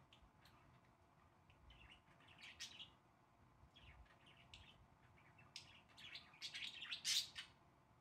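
Budgerigars chirping in short, scattered calls, building to a louder flurry of chirps in the last few seconds.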